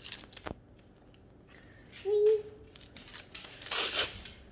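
Gift-wrapping paper crinkling and tearing as a small child pulls at it, with a loud rip near the end.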